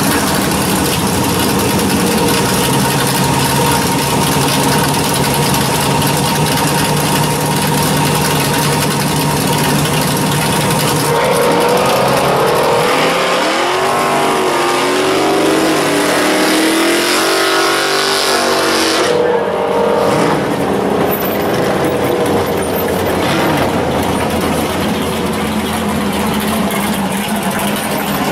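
Pontiac Firebird drag car's V8 idling steadily, then revved up and down for several seconds about halfway through, before the sound changes abruptly as the car drives off.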